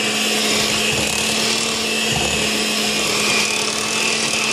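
Electric mixer running steadily with an even motor hum, its beaters churning flour into cake batter in a bowl.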